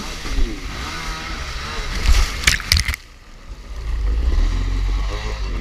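Kawasaki 650SX stand-up jet ski's two-stroke engine revving up and down as it pounds through rough waves. There is a loud splashing crash about two seconds in. About three seconds in the sound drops away sharply for under a second, then the engine comes back with a steady low drone.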